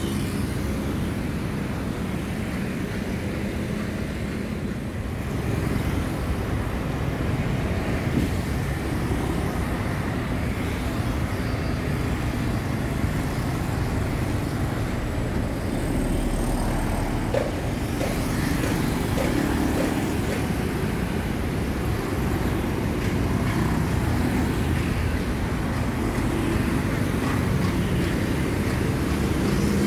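Dense city street traffic, mostly motorbikes and scooters with some cars: a steady mix of small engines and tyre noise as they stream past.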